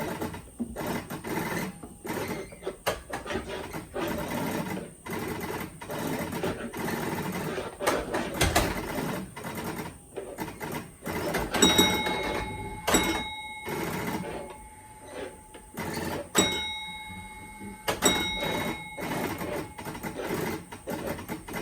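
Electromechanical mechanism of a restored 1957 Genco Motorama arcade driving game running: continuous motor whirring with rapid mechanical clicking and rattling, and a bell-like ring sounding a few times in the second half.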